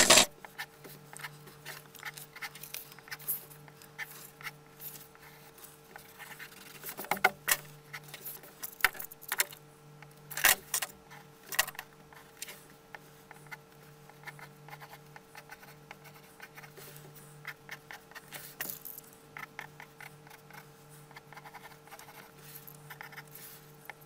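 Graphite pencil sketching on paper: many quick, irregular scratchy strokes and taps, with a few louder scrapes about a third of the way in and near the middle. A faint steady hum runs underneath.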